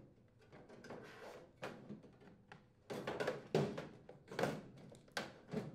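Handling noises from a microwave's sheet-metal cabinet and power cord being moved: faint rubbing and rustling, then several soft knocks and scrapes from about three seconds in.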